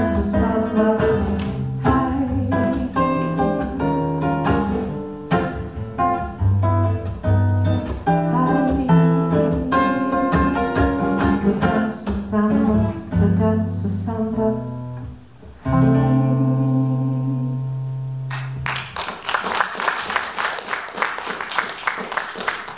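Acoustic guitar playing the closing bars of a bossa nova, ending on a final chord that rings for a few seconds. An audience then claps from about the last four seconds on.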